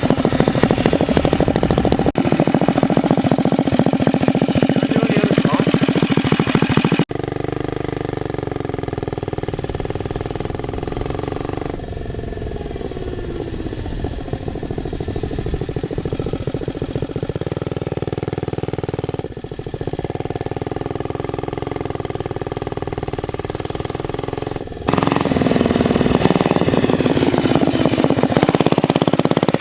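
Small single-cylinder Predator 212 engine of a minibike running under throttle while it is ridden, in several edited clips; the first and last stretches are louder and rougher, the middle one quieter and steadier.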